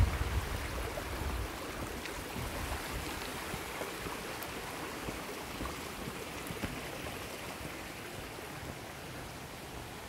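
Shallow mountain stream running over rocks: a steady rushing hiss that grows slowly fainter. A low rumble sits under it for about the first second and a half.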